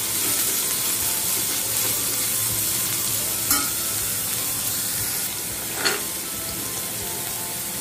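Chopped onions sizzling steadily in hot oil in a kadhai as a steel ladle stirs them, with the ladle clinking against the pan twice.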